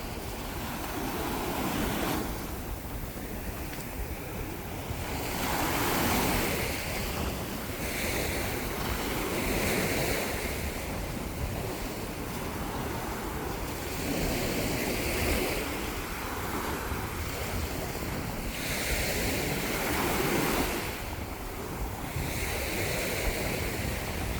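Ocean waves breaking and washing up a beach, the surf swelling and fading every few seconds, with wind blowing across the microphone.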